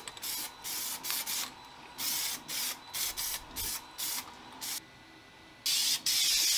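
Aerosol spray can of Plasti Dip Pearlizer hissing in a quick run of short puffs, about a dozen in all. Near the end comes one longer, steady spray.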